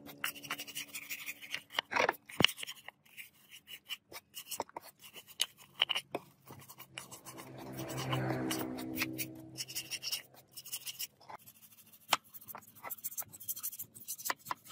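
Wire brush scrubbing a rusty metal car part in a tray of cleaning liquid: irregular scratchy strokes of bristles on metal, with a longer, rougher stretch of scrubbing around the middle.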